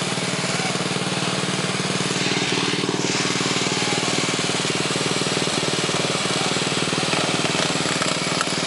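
Racing lawn mower's small engine running at a steady speed, holding an even pitch throughout.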